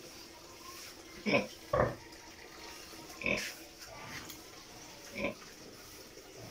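Heavily pregnant sow grunting: short grunts, two close together about a second in, then single ones about every two seconds.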